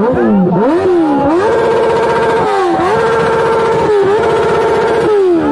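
Kawasaki ZX-10R inline-four sport-bike engine revved while standing. A few quick throttle blips come first, then it is held at high revs for about three and a half seconds with two short dips, and falls back near the end.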